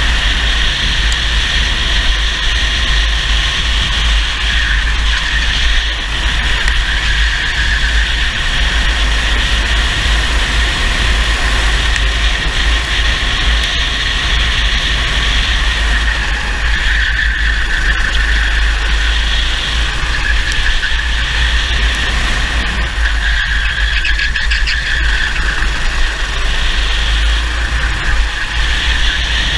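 Racing kart engine running hard at high revs, heard from on board. The note eases off briefly several times and picks up again, over a steady low rumble.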